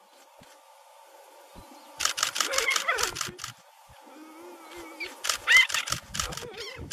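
Camera shutter firing in rapid bursts of about eight clicks a second, in two runs about two and five seconds in. Between the runs a low voice and short high rising cries are heard.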